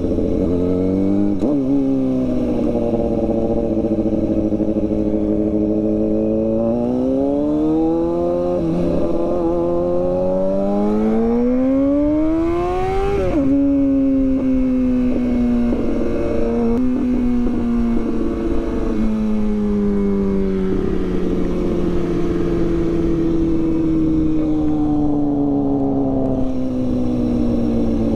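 Kawasaki Ninja sportbike engine under way, with wind rushing over the helmet. The engine note climbs twice as the bike accelerates, drops sharply about halfway through, then sinks slowly and steadily as the bike slows.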